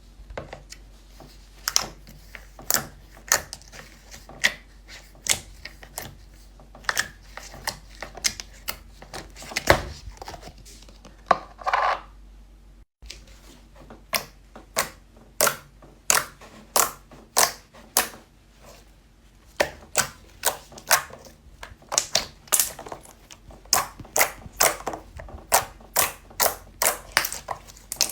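Slime being squished and pressed, giving a string of sharp crackles and pops at about two a second, with a short break about halfway through.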